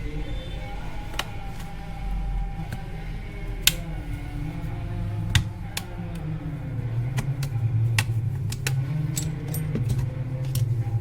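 Sharp, irregular clicks and snaps of plastic as an opening tool pries the back cover off a Redmi 4A phone and the clips let go, over a low steady hum.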